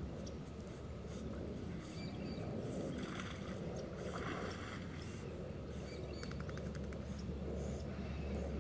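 Dogs swimming and splashing in a pond over a steady low rumble, with a louder patch of splashing about three to four and a half seconds in as one dog clambers out of the water onto the bank.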